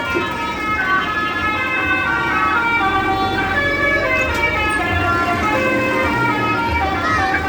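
Indonesian 'telolet' bus horn playing a tune: a steady run of held notes that step up and down, each lasting about half a second, over a low rumble.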